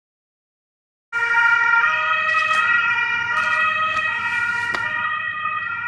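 Ambulance siren passing, a two-tone siren stepping back and forth between two pitches. It cuts in abruptly about a second in after total silence.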